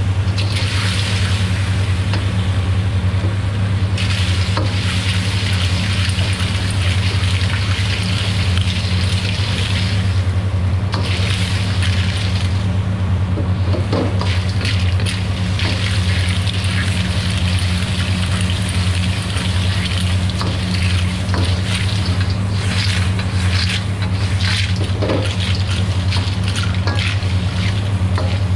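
Clams stir-frying in a carbon-steel wok, sizzling in their sauce as a metal ladle stirs and scrapes them, with scattered clinks of the ladle against the pan, over a steady loud low hum.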